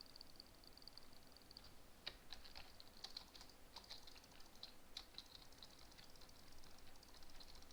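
Faint, irregular rapid clicking that starts about two seconds in. Before that, for the first second and a half, there is a high, fast-pulsing trill.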